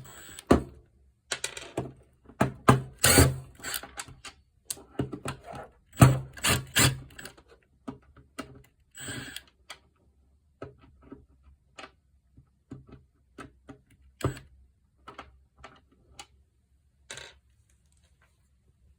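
Irregular clicking and clattering of a plastic tool-charger housing and small parts being handled during disassembly. Quick runs of clicks for the first eight seconds or so, then scattered single taps.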